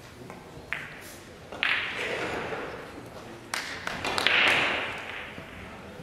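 Sharp clicks of pool balls striking, with short echoing tails, from play in a large hall. A louder rushing, rattling noise about four seconds in is the loudest part.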